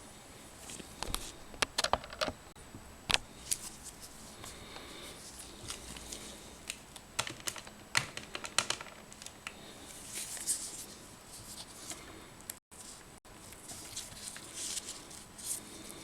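A run of irregular sharp clicks and light taps, some in quick clusters, from small hard objects being handled.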